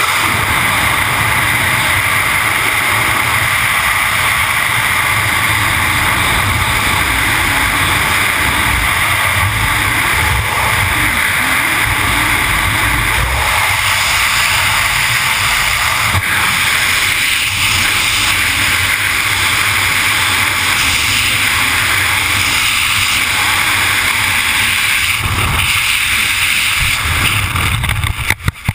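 Loud, steady rush of freefall wind buffeting the skydiver's camera microphone. Near the end a few sharp knocks come and the rush falls away as the parachute opens.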